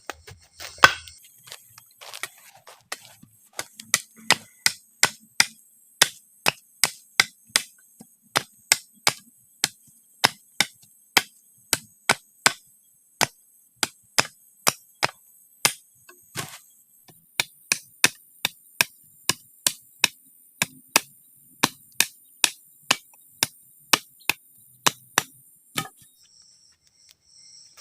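Steady series of sharp strikes on wood, about two a second, as a tool chops or drives wood for the camp shelter, with a short pause partway through. Insects buzz steadily at a high pitch behind it.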